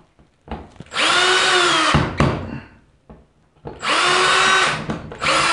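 Cordless drill with a small bit boring test holes in the wall: two short runs of about a second each, and a third starting near the end. The motor's pitch rises as each run starts and then holds steady. The test holes are checking for studs, and three of the four holes hit wood studs behind the wall.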